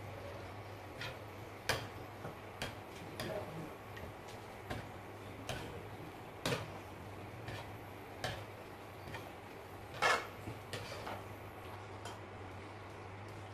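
Metal ladle clinking and knocking against a wok while stirring a thick soup, light irregular knocks about once a second, the loudest about ten seconds in. A steady low hum runs underneath.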